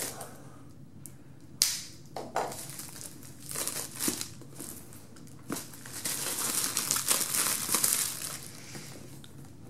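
Clear plastic shrink-wrap being cut and peeled off a cardboard box, crinkling, with sharp snaps about a second and a half and two seconds in, and a longer stretch of crinkling about six seconds in.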